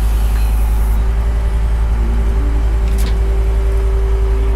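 Engine of the machine lifting the tank running steadily, with a steady whine coming in about a second in and shorter tones shifting in pitch beneath it.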